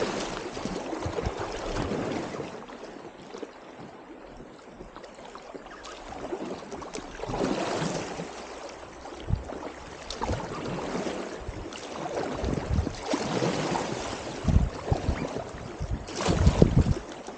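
Creek water rushing and splashing around a packraft on a clear mountain stream, swelling and fading. Scattered low thumps and buffets come through, most of them near the end.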